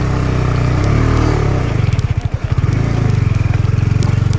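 Motorcycle engine running at low revs while the bike picks its way over a rough, rocky track, its firing beat becoming a distinct pulse about halfway through. A few light sharp clicks sound over it.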